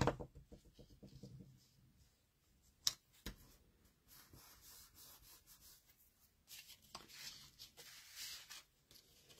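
Handling of paper and cardstock on a craft mat: a knock right at the start, two light taps about three seconds in, then soft rustling of paper scraps being leafed through near the end.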